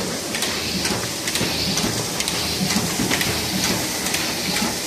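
Miehle Roland single-colour sheet-fed offset press running, printing the reflex-blue background pass: a loud, steady mechanical clatter with rapid, irregular ticks.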